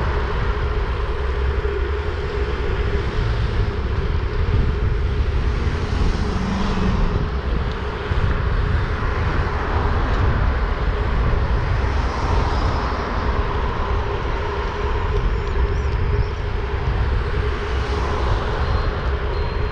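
Steady rush and low rumble of wind on the microphone of a two-wheeler in motion, with a steady hum from the vehicle underneath.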